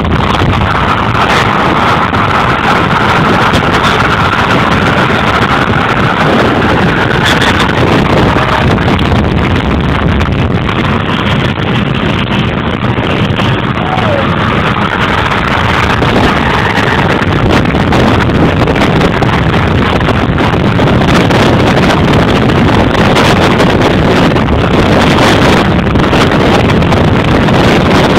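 Loud, steady wind rushing over the microphone, with tyre and road noise from cars moving at highway speed.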